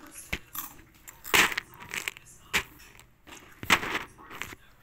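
Dry, crisp ball-shaped food pieces crunching and crackling in irregular bursts, loudest twice, about a second and a half in and again nearly four seconds in.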